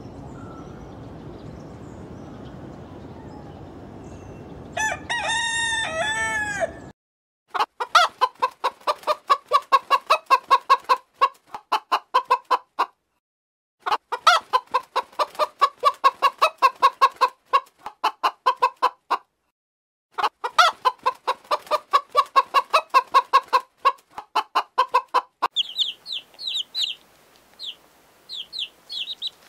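A rooster crows once, about five seconds in. Then a hen clucks in fast repeated notes, several a second, in three runs with short silences between. Near the end, chicks peep with high chirps.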